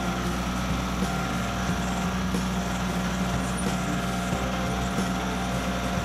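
Kubota L3901 tractor's three-cylinder diesel engine running steadily with an even hum while it powers the BH77 backhoe hydraulics digging a trench.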